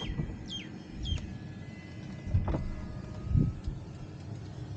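Skoda Octavia's electric power-window motor running as a window glass travels, a faint steady whine, with a couple of dull thumps in the middle.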